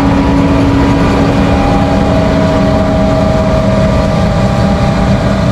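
Heavy farm machinery running steadily: a loud engine drone with several steady whining tones on top, holding an even pitch throughout.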